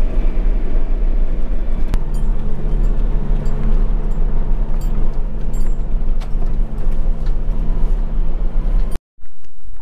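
Truck engine running steadily with low road rumble while driving. There is a click about two seconds in, after which the engine note changes. The sound cuts off abruptly near the end.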